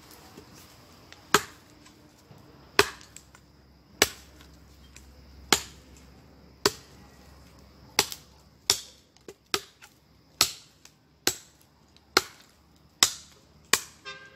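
Repeated sharp chopping blows, about fifteen in all, one every second and a half at first and coming quicker after the halfway point.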